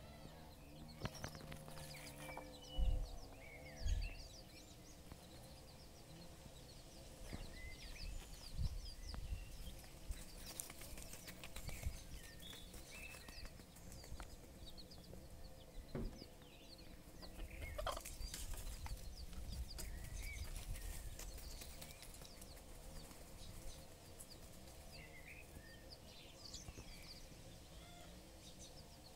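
Appenzeller Spitzhauben broody hen clucking softly while her chicks peep in short, high chirps scattered throughout. Two dull thumps about three and four seconds in are the loudest sounds.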